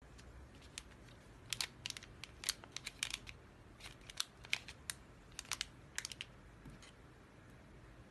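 Clear plastic packaging bag crinkling and crackling as it is handled, a quick irregular run of sharp clicks and rustles.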